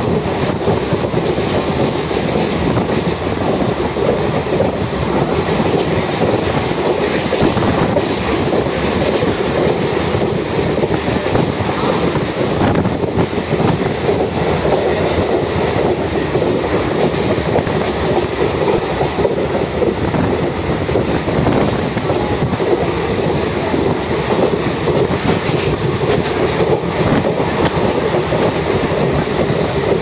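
Train running steadily along the track, heard from on board: a continuous loud rumble and rattle of the carriage and its wheels on the rails.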